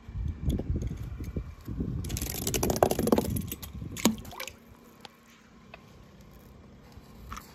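Water sloshing and splashing as a toy car is dropped into it, loudest about two to three seconds in, followed by a single sharp knock about four seconds in.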